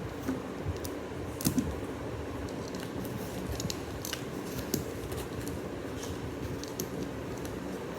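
Plastic Lego bricks being handled and pressed together: scattered small clicks, the loudest a pair of sharp clicks about a second and a half in, over steady low background noise.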